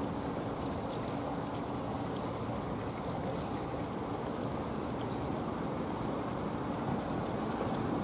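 Steady outdoor rush of distant road traffic, an even hiss and rumble with no siren sound.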